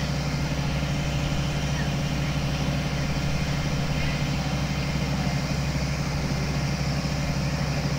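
Fire engine's diesel engine running at a steady speed, driving the pump that feeds the deck gun's high stream of water.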